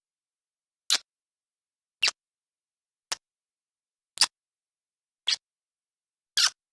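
Six short, wet lip-smacking kisses, about one a second, with silence between them.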